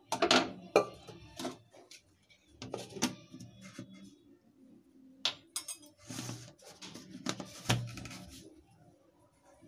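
Plastic mixer-grinder jar and its lid knocking and clattering as the lid is fitted and the jar is handled on its base: a string of irregular knocks, with a few short noisier scrapes about six to eight seconds in.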